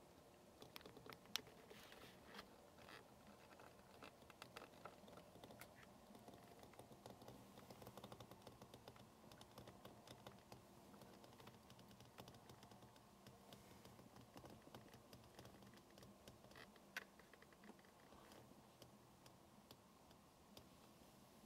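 Near silence with faint, irregular clicks and taps.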